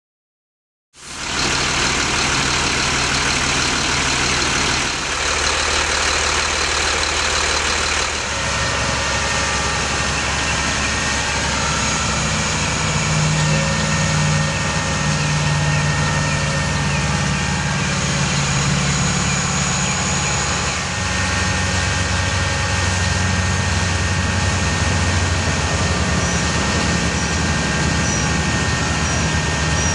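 A 2007 Sterling Acterra bucket truck's engine running steadily while it powers the hydraulics of the Altec AM55 aerial boom as the boom moves. The sound cuts in about a second in, and the pitch of the hum shifts about eight seconds in and again around twelve seconds in.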